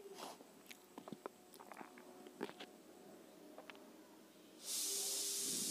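Faint clinks and scrapes of chicken pieces being turned in a steel kadhai. Near the end a steady hiss sets in suddenly from the kadhai cooking over a high gas flame.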